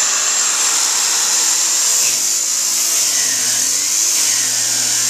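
DeWalt abrasive chop saw running at speed with a high steady whine, its cutoff wheel grinding through thick-walled steel gas pipe. The motor's pitch sags briefly as the wheel bites, about two seconds in and again around three to four seconds.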